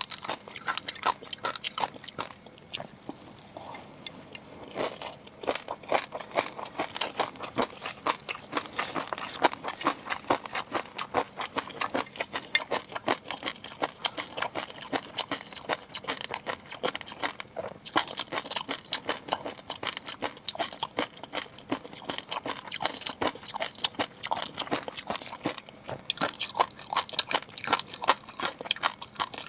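Close-miked eating of seafood: a dense run of quick wet clicks and crunches of chewing and biting, thinning briefly a few seconds in.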